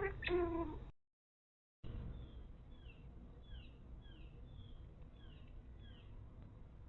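A loud, wavering, meow-like animal call, cut off by about a second of silence, then a run of faint, high, falling chirps about twice a second.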